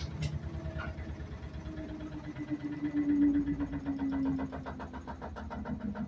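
LG top-load washing machine running: a motor hum with an even pulsing rhythm, and a whine that slowly falls in pitch about halfway through.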